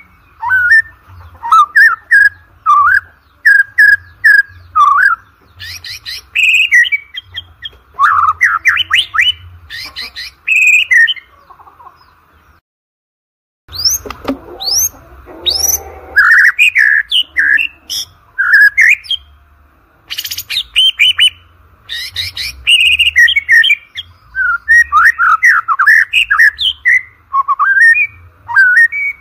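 White-rumped shama singing a long, varied song of loud whistled phrases, quick note runs and rising and falling whistles, with short breaks between phrases. The song cuts out completely for a moment about twelve seconds in, then resumes.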